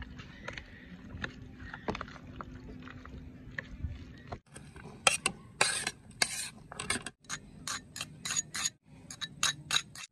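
A spoon stirring chopped salsa in a glass dish, with small scattered clicks. After a cut about four seconds in comes a quick run of crisp scrapes, as chopped onion and chili are scraped off a cutting board and a spatula into a ceramic bowl.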